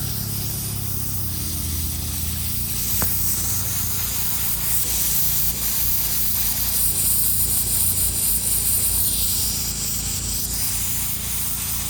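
Steady hiss of compressed air blowing out sprinkler lines to winterize them, swelling about halfway through, over a low engine hum. A single click about three seconds in.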